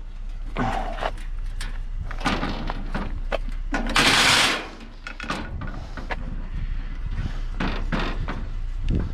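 Handling noise from a heavy screen being shifted and strained against: repeated knocks and thuds, with a loud rushing scrape or strained exhale about four seconds in.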